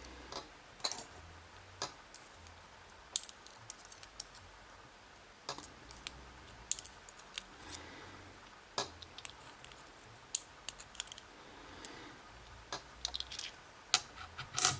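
Small metal lock parts, the dimple pins and springs of a gutted lock, being handled: scattered light clicks and taps at irregular intervals, with one louder metallic click and brief ring near the end.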